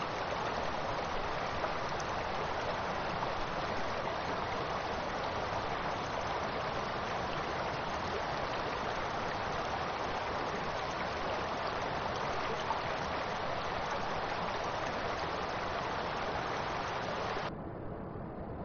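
Steady rushing of a fast mountain river over gravel. A little before the end it cuts off abruptly to a quieter, duller hiss.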